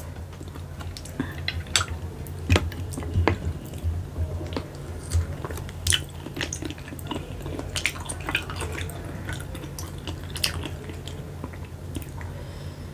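Close-miked eating sounds of spotted babylon snails (keong macan) in balado chili sauce: wet sucking and smacking as the meat is drawn from the shells, with chewing and irregular sharp clicks of the shells being handled.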